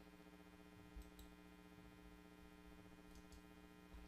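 Near silence: room tone with a faint steady electrical hum and a few faint ticks, two about a second in and two more about three seconds in.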